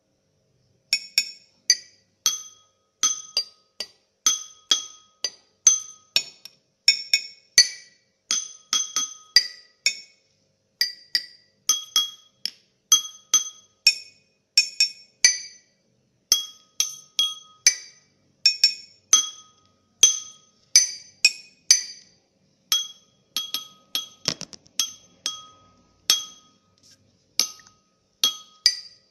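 Glass clinking over and over: short, bright, ringing clinks in quick clusters of two to four, starting about a second in.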